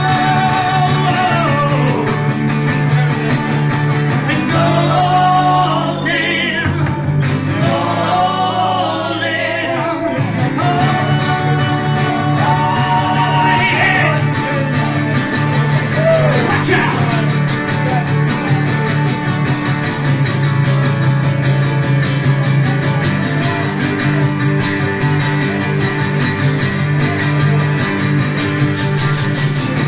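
Live acoustic duo: two acoustic guitars strummed steadily under male singing, with long held vocal notes.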